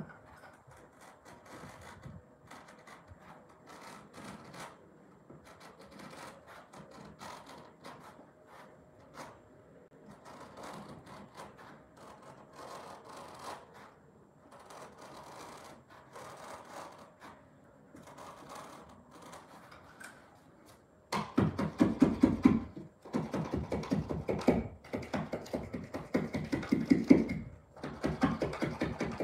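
A carpet being trimmed along the wall: at first quiet scratching and rubbing as the edge is worked by hand, then, about two-thirds of the way in, loud rasping strokes of a knife cutting through the carpet pile and backing, each lasting a second or two with short pauses between.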